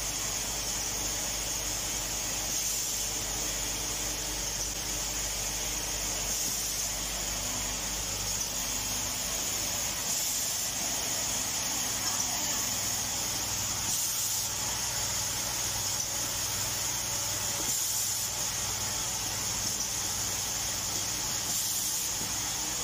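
Automatic plastic pants-hanger clip assembling machine and its conveyor belt running: a steady hiss over a low hum, with a brighter hiss returning about every four seconds.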